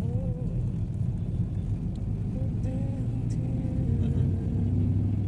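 Steady low drone of a car, a rumble of engine and road noise with faint wavering higher tones over it.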